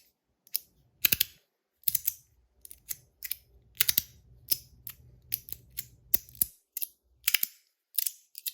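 Stainless steel magnetic fidget slider being slid back and forth, its plates snapping together in sharp, irregular clicks about two to three a second. It has no foam dampener, so the clicks are really crunchy.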